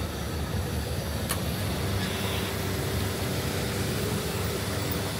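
Steady road traffic noise of vehicle engines running, with a faint steady tone coming in about two seconds in.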